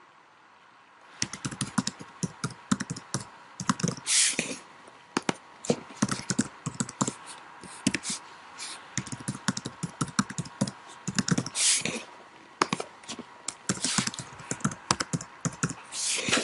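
Typing on a computer keyboard: rapid, irregular keystrokes starting about a second in, with three longer noisy swells among them, while login details are entered.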